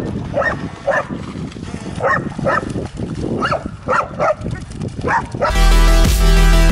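A dog barking again and again, short sharp barks in ones and twos. About five and a half seconds in, loud electronic dance music with a heavy beat cuts in.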